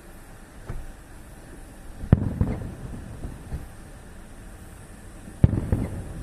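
Fireworks shells bursting overhead: a faint thump, then two loud sharp bangs about three seconds apart, each followed by a rolling rumble and a few smaller pops.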